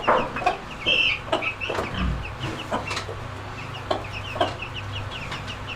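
A mother hen clucking while her newly hatched chicks peep in rapid, high, repeated cheeps, with a few sharp knocks mixed in.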